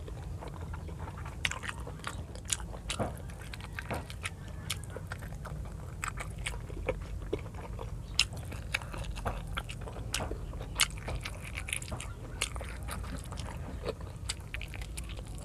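Close-up eating of chicken neck adobo by hand: chewing and biting, with many irregular wet mouth clicks and smacks. A steady low hum sits underneath.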